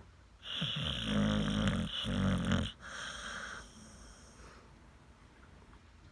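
Snoring: one long, loud snore starts about half a second in, with a short catch near its end. A softer breath out follows, then quiet breathing.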